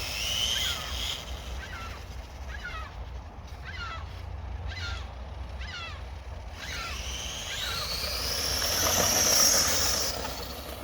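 FTX Outback 2 RC truck's 3600 kV brushless motor and geartrain whining as the throttle is worked. There is a string of short blips that each fall away in pitch, then a long rising whine that stops about a second before the end.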